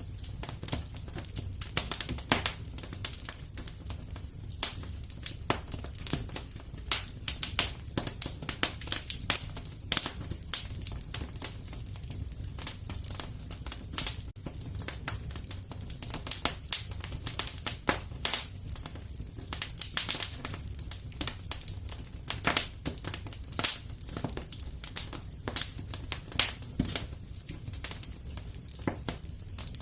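Wood fire crackling in a fireplace: a steady low rumble of the flames under many irregular sharp pops and snaps.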